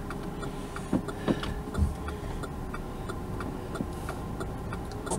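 Car turn-signal indicator ticking steadily, about three ticks a second, over a low in-cabin hum, with a few soft knocks about a second in.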